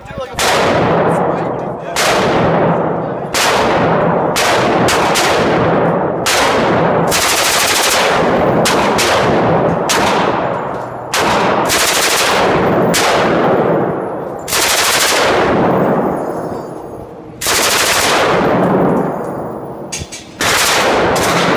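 M249 SAW, a belt-fed 5.56 mm light machine gun, fired on full auto in repeated short bursts with brief pauses between them. Each burst rings out with a fading echo inside an indoor range.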